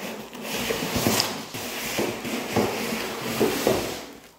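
Soundbar packaging being handled and pulled apart: white foam end caps and the plastic-wrapped soundbar rubbing against cardboard, with several short knocks and scrapes.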